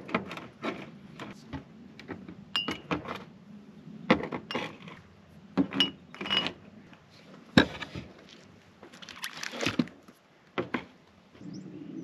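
Glass jars and bottles being picked up and set down on a folding table: a string of irregular clinks and knocks, a few ringing briefly.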